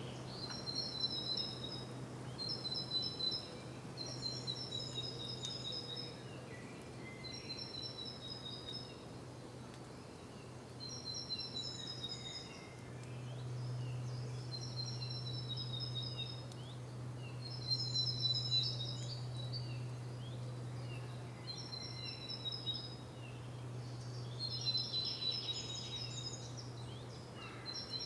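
Birds singing: short high phrases, each a pair of falling notes, repeated about every second or two over a steady low hum.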